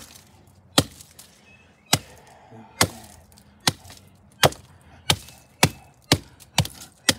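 Hammer bashing the burnt remains of a Sharp alarm clock on the ground: about a dozen sharp blows, spaced about a second apart at first and coming faster toward the end.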